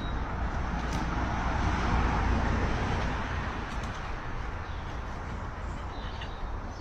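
Road traffic: the rushing noise of a passing vehicle, which swells about two seconds in and then slowly fades over a low rumble.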